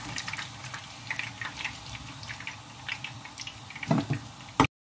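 Hot oil sizzling and crackling in a frying pan as fried plantain slices are lifted out with a slotted spoon. A couple of louder knocks near the end, then the sound cuts off suddenly.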